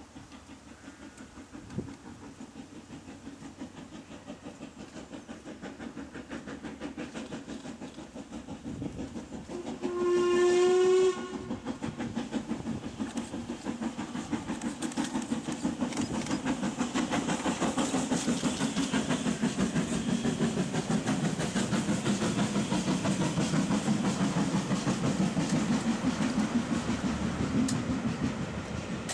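Steam locomotive approaching with a passenger train, its rapid, even exhaust beats growing steadily louder. About ten seconds in it gives one whistle blast lasting about a second, the loudest sound. The beats and the train's running noise then carry on loudly as the locomotive and coaches pass close by.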